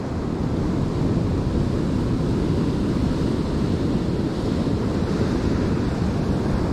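Surf breaking and washing in over rocks and sand, a steady rushing noise, with wind rumbling on the microphone.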